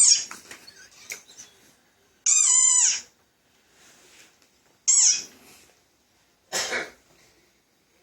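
Four high-pitched cat meows with pauses between them, the first and third falling steeply in pitch, played through a screen's speaker.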